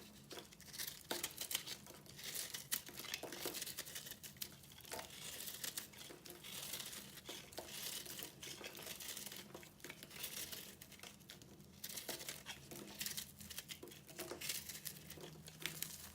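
Microwave-puffed bar soap being crushed and crumbled by hand: dry, brittle crackling and crinkling in irregular flurries.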